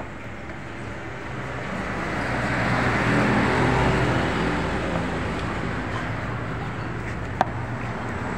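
A motor vehicle passing on the road, its engine hum and tyre noise building up, loudest about three to four seconds in, then fading. A single sharp click near the end.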